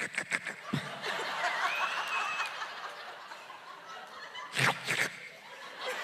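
A woman making gulping, slurping drinking noises with her mouth into a microphone, a quick run of short sharp sounds at first, with audience laughter and two more loud mouth sounds near the end.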